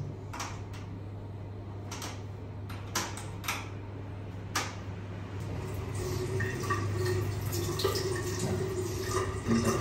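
A few sharp plastic clicks as toothbrushes are handled at a wall-mounted toothpaste dispenser, then from about six seconds in a bathroom tap runs water into a ceramic vessel sink.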